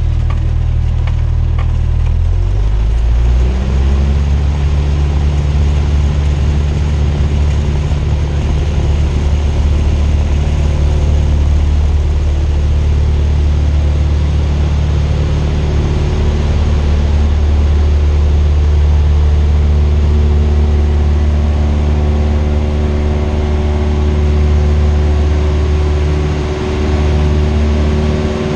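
The four-cylinder Lycoming engine of a Cessna 172R, heard from inside the cockpit. It picks up speed a few seconds in as the throttle goes in for takeoff power, then runs steadily at high power, dipping briefly near the end.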